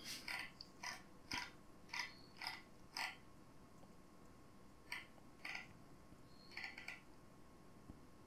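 Faint short clicks of a computer mouse's scroll wheel being flicked to scroll a page: a run of six about two a second, a pause, then four more.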